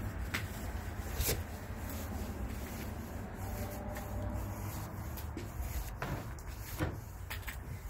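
Paint roller on an extension pole rubbing stain onto wooden deck boards, with a few light knocks as the roller meets the tray. A low steady rumble runs underneath.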